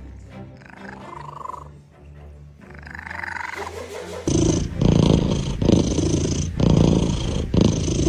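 Soft music with a cat's faint cries, then about four seconds in a domestic cat starts making loud, rough, rhythmic purring sounds, about one breath-cycle a second.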